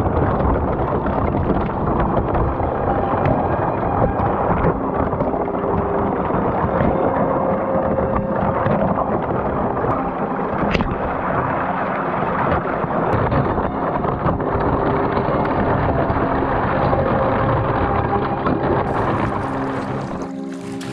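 Thin sheet ice cracking and grinding against a plastic kayak hull as it breaks its way through. A continuous crunching with many sharp cracks and a low rumble, which dies away near the end as the boat reaches open water.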